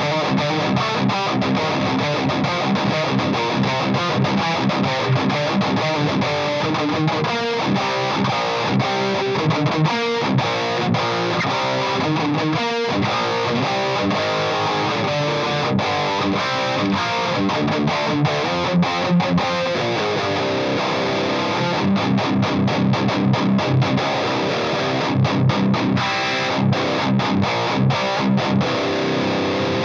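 Electric guitar tuned to drop C (a Washburn Parallax Solar) played through a Marshall Vintage Modern 2466 100-watt valve head with distortion: heavy riffing, full chords broken by many short, choppy stops.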